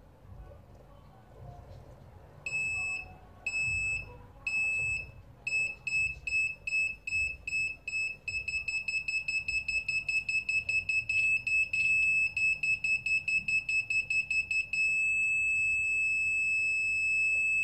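Arduino buzzer driven by an HC-SR04 ultrasonic distance sensor, beeping at a high pitch. The beeps start about two and a half seconds in at about one a second, speed up twice to a rapid run of about five a second as the object closes in, and merge into one steady tone for the last few seconds, the signal that the object is within 2 cm of the sensor.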